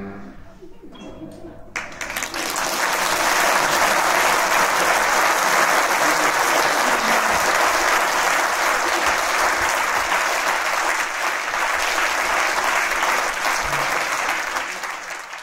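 Audience applause, breaking out about two seconds in, holding steady, then dropping away quickly at the very end.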